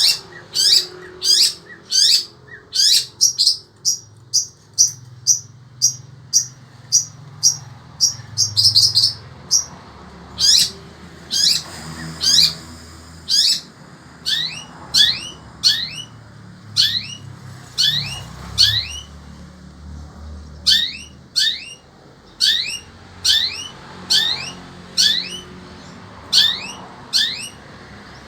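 Long-tailed shrike (cendet) calling in a long, loud run of short, sharp, high notes. The notes come quickly at first, space out to about one a second in the middle, then speed up again near the end.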